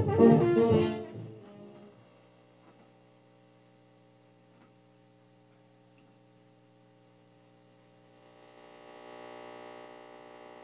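Zenith 10S567 vacuum-tube radio playing swing jazz that fades out within the first two seconds as the dial is tuned off the station. A faint steady hum is left, then a faint swell of hiss between stations about eight seconds in.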